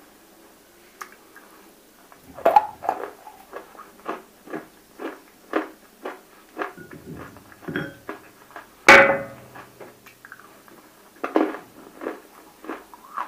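Close-miked crunching of water-soaked roasted clay pieces being bitten and chewed, with sharp crunches about two to three a second starting about two seconds in. The loudest single crunch comes about nine seconds in.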